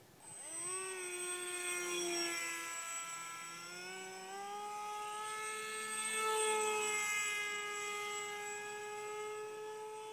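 Electric motor and propeller of an RCPowers Su-34 foam RC jet in flight: a whine that climbs in pitch as the motor speeds up about half a second in, rises again and is loudest around the middle as the plane passes close, then runs steady.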